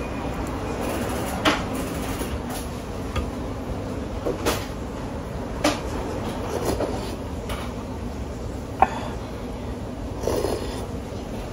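Tableware clinking and knocking in a small restaurant: about six short sharp clicks and knocks scattered over a steady low background hum.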